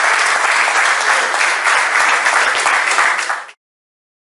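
Audience applauding: a roomful of people clapping steadily, cut off suddenly about three and a half seconds in.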